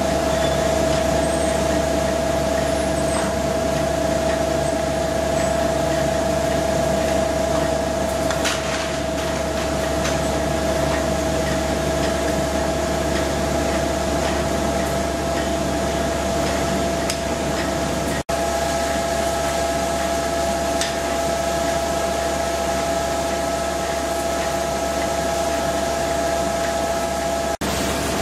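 Steady running noise of paper-mill wood-handling machinery: chain conveyors and their geared drive motors give a constant whine over a low hum, with a few faint knocks. The sound cuts out for an instant twice, once midway and once near the end.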